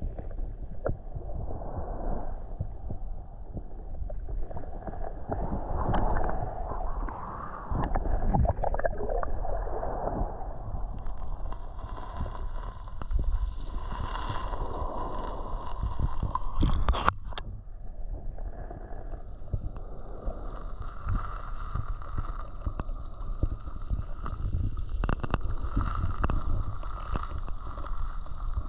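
Muffled underwater noise picked up by a submerged camera: water moving and gurgling over the microphone, with scattered small clicks. About eleven seconds in, a steady higher-pitched hum joins and carries on, fading briefly around seventeen seconds and returning.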